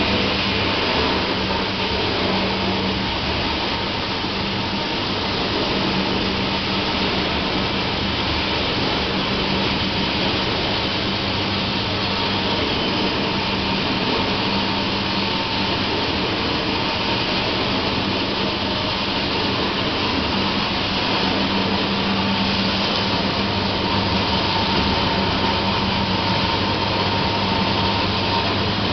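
Hobart Ecomax CHH50 commercial dishwasher running with its hood closed: a steady pump motor hum under the constant rush of water spraying inside. The sound stops abruptly at the very end.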